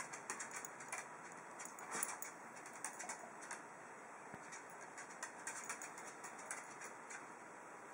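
A small dog's claws ticking and tapping irregularly on a hard desk top as it steps about, faint light clicks over a steady hiss, with the sharpest click about two seconds in.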